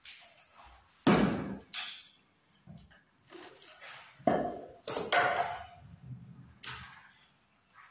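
Sharp knocks and clatter of work things being set down and handled on a hard tiled floor, the loudest about a second in and another run a little past the middle, with light scraping between.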